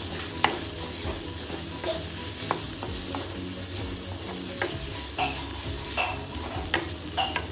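Chopped onions, garlic and ginger sizzling in oil in a metal wok while a steel ladle stirs and scrapes them, clicking irregularly against the pan.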